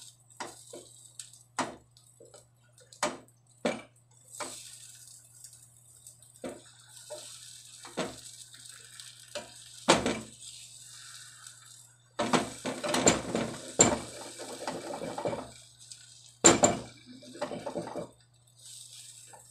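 Slotted spatula tapping and scraping against a frying pan while an egg omelette sizzles in oil. Scattered sharp taps come first, then a denser, louder run of scraping and clatter over the second half.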